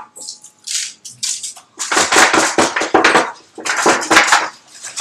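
Gloved hands rubbing dry rub into racks of baby back ribs in foil-lined pans: irregular rustling and crinkling strokes, heaviest from about two seconds in.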